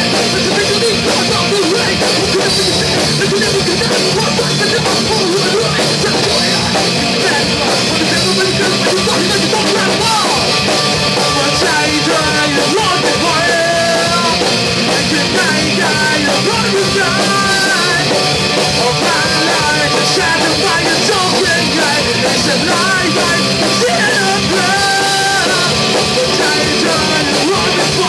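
Live rock band playing: electric guitar and drum kit, with a man singing over them. Loud and continuous.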